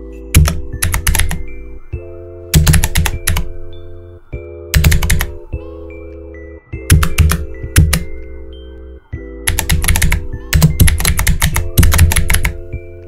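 Background music of sustained synth chords over a bass line, with bursts of loud, fast computer-keyboard typing clicks every couple of seconds.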